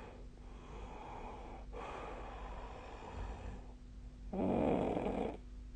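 A sleeping person breathing noisily through two long breaths, then one loud snore about four seconds in that lasts about a second.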